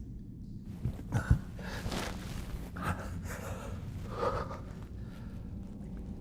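A man breathing hard with several sharp gasps, over a steady low hum, with a brief thump about a second in.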